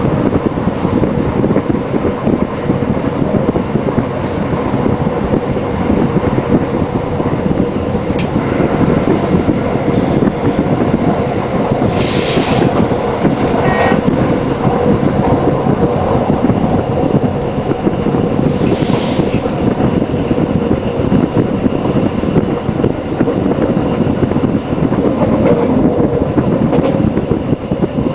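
DB class 628 diesel railcar running along the line, heard from the driver's cab: a steady engine drone over continuous wheel-on-rail rumble. Two short high-pitched sounds come near the middle, about twelve and nineteen seconds in.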